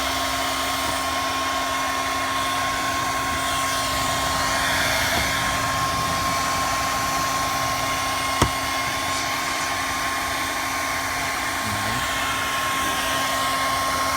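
Electric heat gun blowing steadily, with a constant motor hum and whine, warming the emblem adhesive to loosen it. A single sharp click about eight seconds in.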